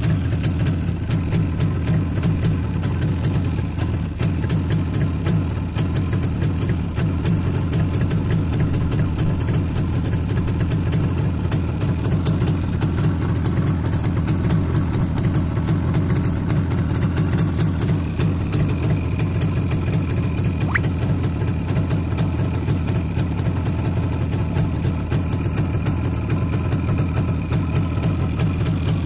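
1988 Yamaha RD350's air-cooled 347 cc parallel-twin two-stroke engine idling steadily, with a rapid, even beat of firing pulses.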